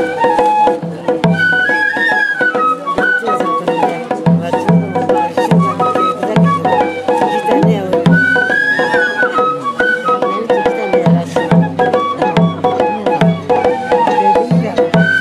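Japanese festival ohayashi music: a bamboo flute playing a winding melody over steady taiko drum beats.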